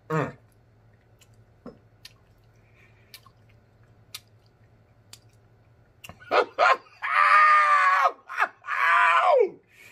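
A man eating a hot mouthful, with faint mouth clicks, then two long, loud, wordless exclamations of delight near the end, each dropping in pitch as it ends.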